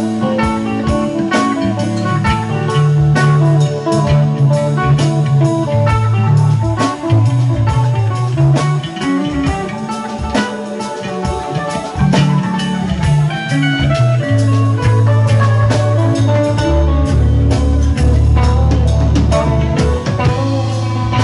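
Live band playing an instrumental jam: electric guitars over bass guitar and drum kit.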